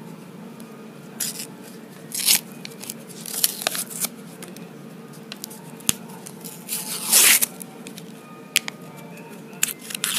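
Insulating wrap being ripped and peeled off a hoverboard's 18650 lithium-ion battery pack, prised up with a hand tool: a series of irregular tearing and scraping bursts, the loudest about seven seconds in, with a few sharp clicks.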